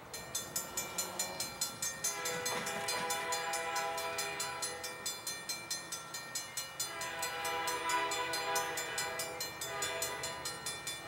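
Railroad crossing bell dinging in a steady, rapid beat as the gates come down, while the horn of an approaching EMD SD60F freight locomotive sounds in two long blasts, the first starting about two seconds in and the second, louder, from about seven seconds in.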